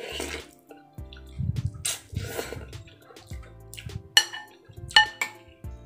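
Close-up eating sounds: instant noodles slurped off a fork, a second longer slurp about one and a half seconds in, then two sharp ringing clinks of a metal spoon against a ceramic bowl about four and five seconds in.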